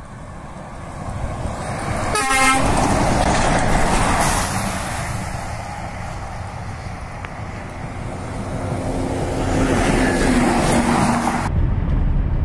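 A semi-truck coming along the highway gives a short horn blast about two seconds in, then passes by with a rush of engine and tyre noise. Road noise swells again with a low engine tone from about eight seconds in, as another vehicle goes by.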